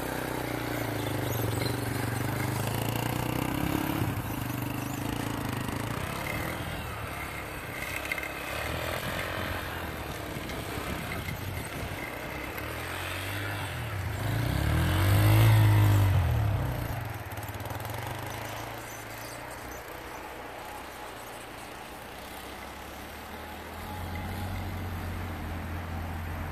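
Small dirt bike's engine revving up and down as it is ridden through deep snow. It swells loudest about halfway through as the bike passes close, then drops back as the bike moves off.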